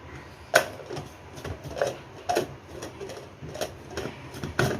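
Irregular clicks and knocks from a mixer grinder jar being handled as its lid is opened and its rubber sealing ring taken out. The sharpest click comes about half a second in.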